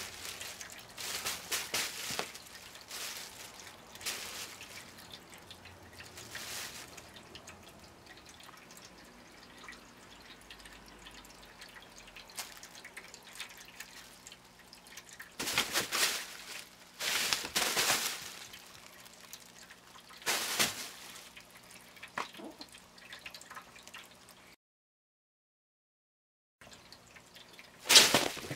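Crinkle tunnel cat toy crinkling and rustling in short bursts as cats pounce into it and bat at its fabric, loudest near the end. For about two seconds before the end the sound drops out completely.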